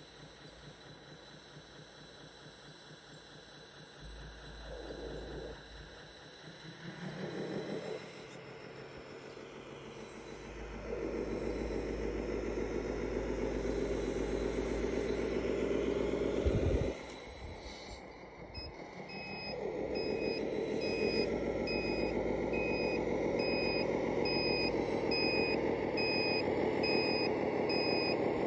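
RC model articulated dump truck running: short swells of motor whine, then a loud steady motor whine that stops abruptly. From about two-thirds through it runs again while backing up, with its reversing beeper sounding a regular series of beeps.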